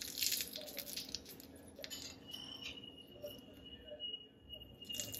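A metal spoon scraping and clicking lightly against a ceramic bowl as tempering is spooned onto chutney. The soft clicks come mostly in the first second and are sparse after that.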